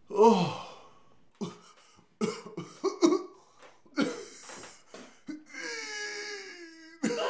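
People coughing and gagging on a mouthful of yogurt: a loud falling groan at the start, a run of short choking coughs, then a long falling whimper near the end.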